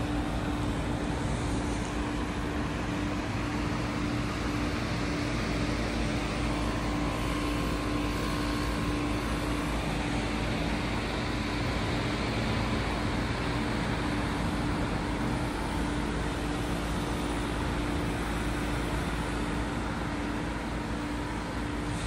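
Heat pump outdoor unit running in defrost mode: a steady hum with a broad rushing hiss over it, unchanging throughout.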